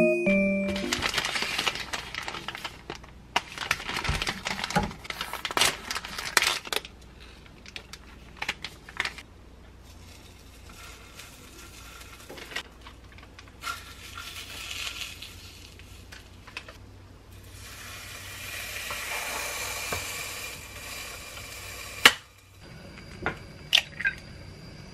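Kitchen prep sounds: scattered clicks, taps and light clatter of food and utensils as a rice cake is set into a waffle maker. Near the end, a sharp crack as an egg is broken on the rim of a frying pan, followed by a few lighter taps.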